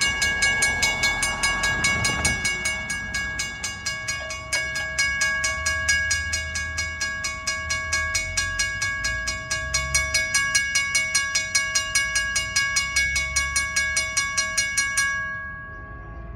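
WRRS M-Bell railroad crossing bell ringing with rapid, steady strokes as the crossing warns and the gate arm comes down. It cuts off near the end, once the gate is down.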